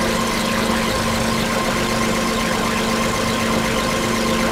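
Glitch Storm DIY bytebeat synthesizers playing: a loud, buzzing digital drone on a steady low tone, with fast glitchy patterns sweeping up and down above it.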